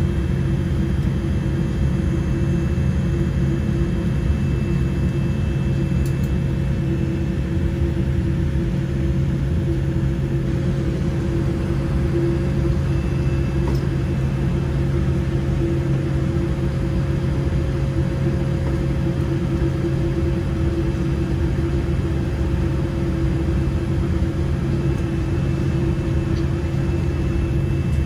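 Inside the cabin of a Boeing 787-8 taxiing or holding for takeoff: a steady low rumble with a constant hum from its Rolls-Royce Trent 1000 engines at idle power, unchanging throughout.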